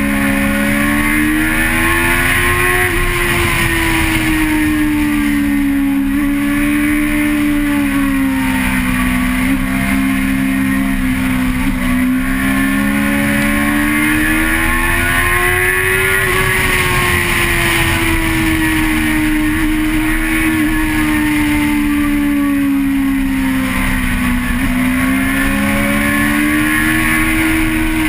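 A vehicle engine running steadily, heard onboard, its pitch slowly rising and falling a few times as the revs change, with a constant rushing noise underneath.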